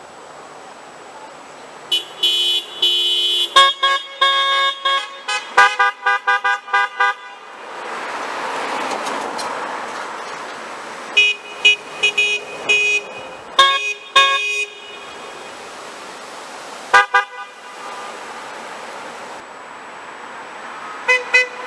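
Car horns of passing drivers honking at a roadside protest sign: a long blast, then runs of short rapid toots in several different pitches, in clusters with the passing traffic rising and falling between them.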